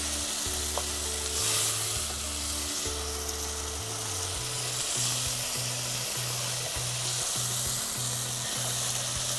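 Minced chicken keema sizzling in a pot on the hob as it is stirred with a wooden spatula, the dish nearly done. Background music plays underneath, its low notes settling into a repeating pattern about twice a second in the second half.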